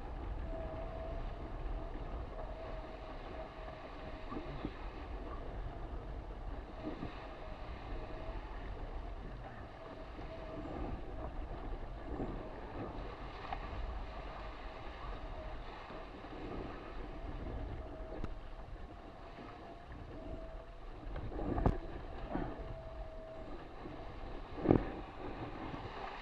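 Wind buffeting the microphone and water rushing past an RS600FF hydrofoil dinghy sailing at about 17 knots. A thin steady whistle comes and goes. Two sharp slaps or knocks stand out near the end.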